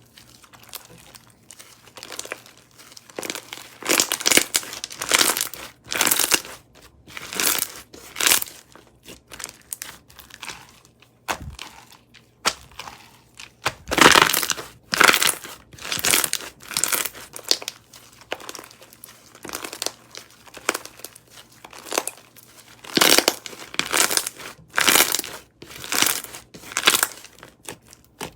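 Crunchy slime packed with Perler beads being pressed and squeezed, giving repeated crackling crunches, roughly one a second, with a short lull about halfway through.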